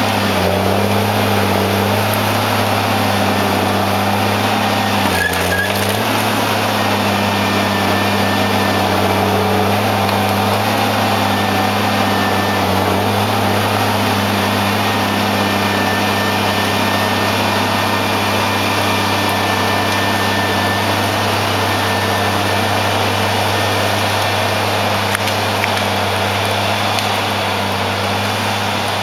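Konrad Highlander forestry harvester's diesel engine running steadily at working revs while its hydraulic crane swings the harvester head. The engine note dips briefly about five seconds in, then recovers.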